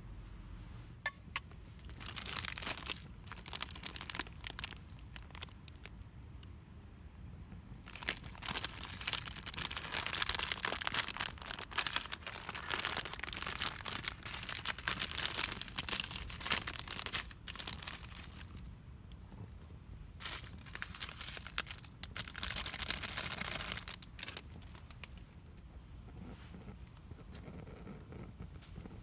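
Crinkling and rustling in several bursts, the longest from about eight to eighteen seconds in.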